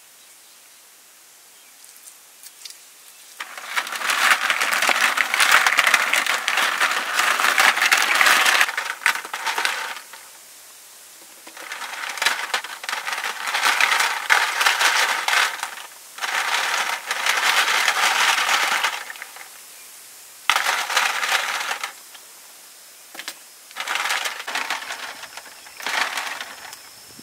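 Hard snail shells clattering and grinding against each other and the stainless steel tray as hands scrub the snails in water. It comes in about five bursts of a few seconds each, with short pauses between.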